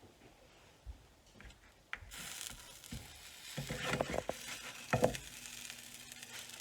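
A quesadilla sizzling in a frying pan, the sizzle picking up about two seconds in, with a spatula scraping and knocking against the pan several times, loudest near the end.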